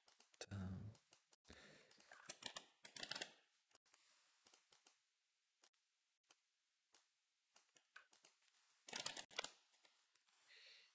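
Typing on a computer keyboard with mouse clicks: a run of quick key presses in the first few seconds, then scattered single clicks, and another short run of key presses near the end.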